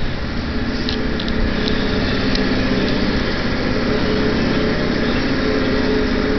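Machinery running steadily in a workshop: an even mechanical drone with a steady hum, with a few light clicks about a second in and again near two and a half seconds.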